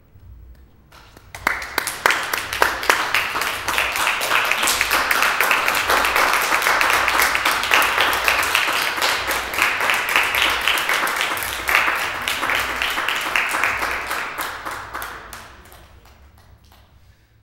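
A small audience applauding: clapping breaks out about a second in, holds steady, then thins out and dies away near the end.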